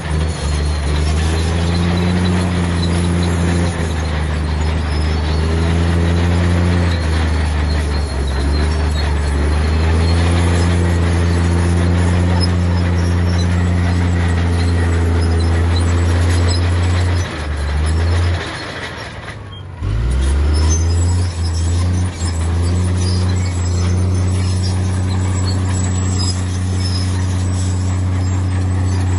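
Heavy diesel engine of earthmoving machinery running hard, its pitch rising and falling with the load. It drops away for a moment about two-thirds through, then picks up again.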